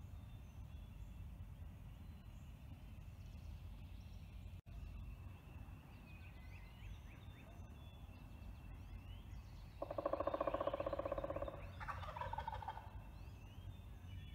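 Wild turkey tom gobbling from its roost: one loud, rapid rattling gobble about ten seconds in, lasting nearly two seconds and trailing off into a shorter, fainter call.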